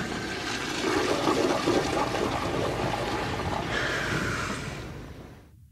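A steady rushing, watery noise, consistent with a toilet flushing, that fades out shortly before the end.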